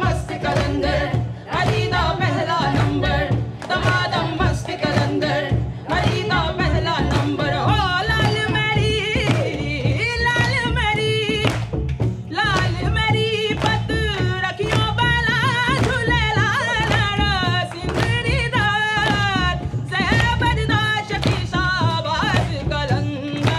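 Live acoustic band playing: voices singing a wavering, ornamented melody over a steady beat of hand drums, with hand claps and strummed strings.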